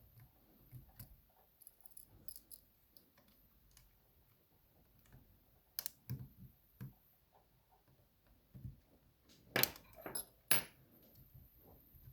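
Small metallic clicks and ticks of tools working the bendy C-clip off a DOM iX 6SR lock cylinder, scattered and irregular, with two sharper clicks about ten seconds in.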